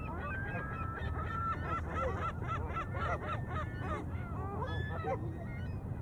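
A flock of geese honking: many short calls overlapping in quick succession, over a steady low rumble.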